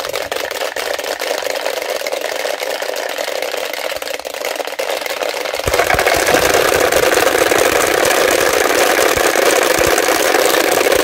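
Many wooden Easter rattles (klibberen) worked together in a continuous, dense clatter, sounding the noon call in place of the church bells, which are silent on Holy Saturday. It grows louder a little over halfway through.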